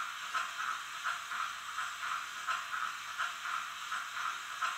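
Digital steam-exhaust chuffing from the Zimo sound decoder of an HO-scale Roco BR52 model steam locomotive, played through its small onboard speaker: an even beat of about four chuffs a second, thin and high with no bass.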